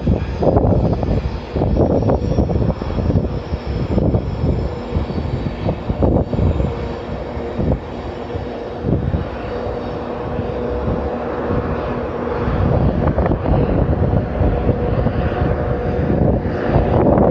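Class 70 diesel locomotive's V16 engine working hard up a gradient, mixed with Class 92 electric locomotives' cooling fans running at full blast. A loud, steady machine noise with a steady whine that eases slightly about halfway, then builds again near the end.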